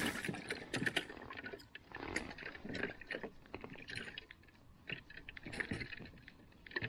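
Close handling noise of ice fishing: clothing rustling and irregular small clicks and taps as a perch is unhooked and dropped into a small plastic container.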